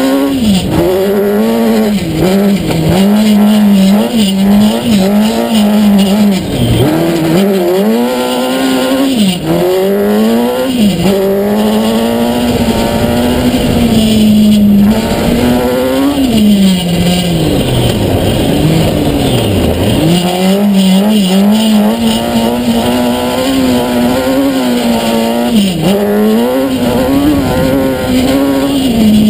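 Kawasaki ZX-10R inline-four motorcycle engine in a sand-rail buggy running hard at high revs under way. Its pitch repeatedly dips and climbs back as the throttle is lifted and reapplied, and twice, about two-thirds of the way through, the revs fall much lower before rising again.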